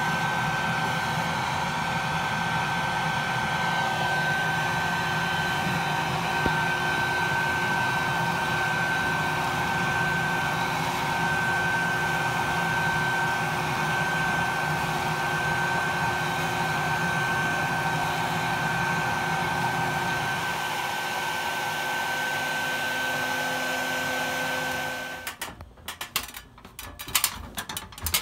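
Bee vacuum running steadily with a constant whine, sucking honey bees off a cluster through its hose. It shuts off about 25 seconds in, followed by a few knocks and rattles.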